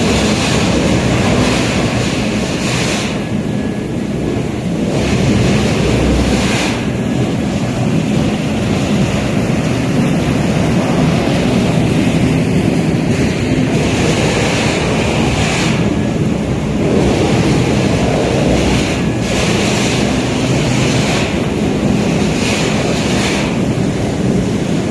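Disc wood chipper running: a loud, steady rushing noise over a low hum, with irregular short louder surges every second or two.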